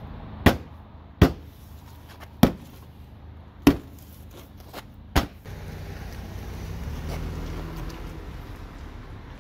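Five sharp knocks, about a second apart, as a hand strikes the plastic front bumper cover of a Honda. A steady low rumble follows for the last few seconds.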